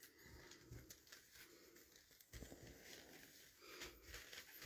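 Near silence, with faint soft rustles and light taps of cotton fabric pieces being smoothed and placed by hand on a quilting layout.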